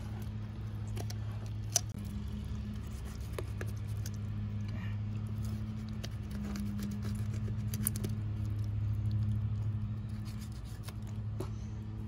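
A knife scraping and clicking as it cuts a gag grouper's cheek meat free from the head, over a steady low hum.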